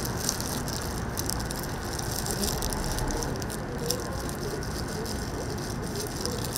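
Toast-shop griddle cooking: steady sizzling with light clatter and clicks of utensils.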